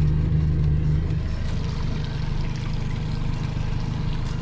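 Outboard motor idling with a steady low hum that drops away about a second in, leaving a low rumble and faint water sounds.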